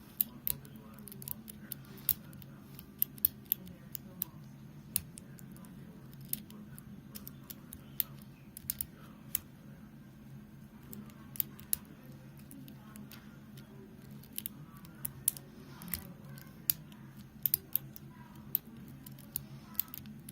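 Faint metallic clicks and ticks at irregular intervals as a hook pick lifts the pin tumblers, some of them spool pins, of a Stanley 40 mm pin-tumbler padlock held under tension. A steady low hum runs underneath.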